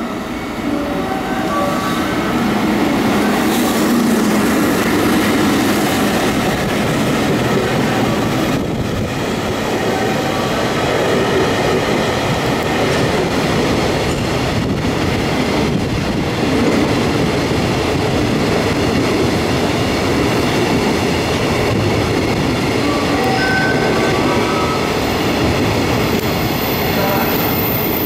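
A freight train hauled by an EF65 electric locomotive passing through a station without stopping: a loud, steady rumble of the wagons' wheels on the rails as the train goes by.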